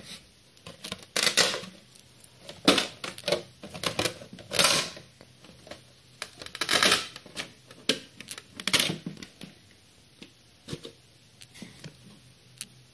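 Velcro (hook-and-loop) strips on an RC car body being pulled apart and pressed back together: a string of short ripping sounds over the first nine seconds, then a few faint clicks.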